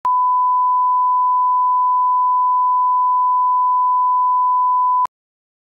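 A steady 1 kHz line-up test tone, the reference tone that goes with colour bars, cutting off suddenly about five seconds in.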